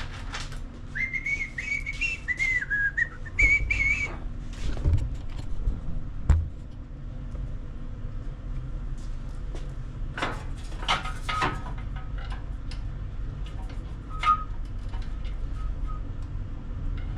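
A person whistling a few wavering notes, then scattered clicks, taps and a sharp knock as metal engine guards are handled and fitted into place.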